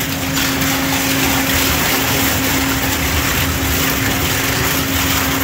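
Industrial twin-shaft shredder running, its cutter shafts grinding up pieces of a photocopier, with a steady hum underneath.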